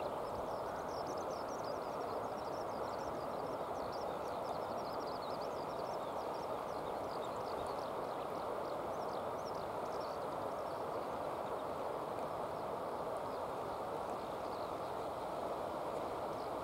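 Steady outdoor background rush, even in level, with many faint, quick high chirps over it, thicker in the first half.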